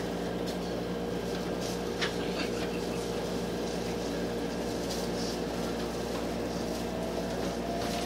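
Steady hum inside a JR West 287 series electric train standing at a platform, from its air conditioning and onboard electrical equipment, with a faint click about two seconds in.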